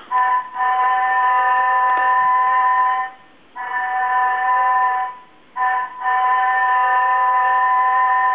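Electronic steam-whistle sound of a G-gauge toy train: a chord of several steady whistle tones, blown in long blasts separated by brief gaps.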